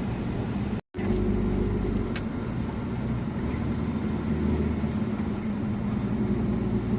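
Truck's diesel engine and road noise heard inside the cab while driving, a steady low drone. It breaks off completely for a split second about a second in.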